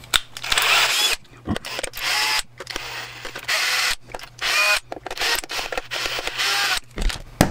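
Cordless drill-driver running in a string of short bursts, each with a rising motor whine, as a homemade triangle bit backs triangle-head screws out of a plastic plug-in socket housing.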